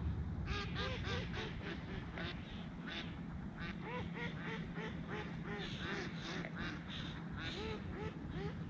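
Ducks quacking: many short calls in quick succession, starting about half a second in, over a low steady rumble.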